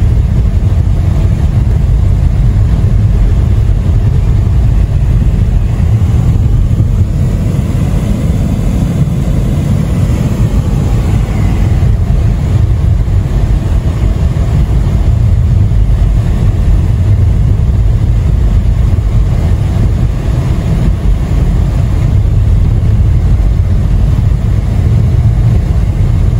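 Steady low rumble of a car driving on a snow-covered highway, heard from inside the cabin: road and engine noise.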